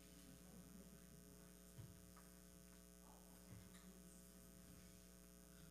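Near silence with a steady electrical mains hum, and two faint low knocks about two seconds apart.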